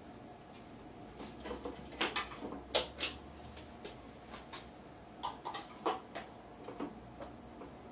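Scattered clicks and knocks of objects being handled on a kitchen counter, loudest about two to three seconds in and again near six seconds. A faint low hum runs for a couple of seconds in the first half.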